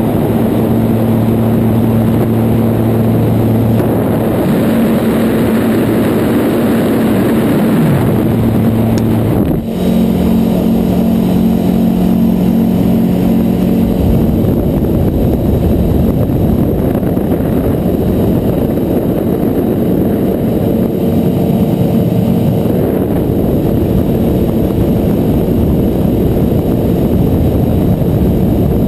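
Light aircraft's engine and propeller running steadily in flight, with heavy wind rush over the microphone. The engine note shifts abruptly about ten seconds in and from about halfway through is mostly buried under the wind noise.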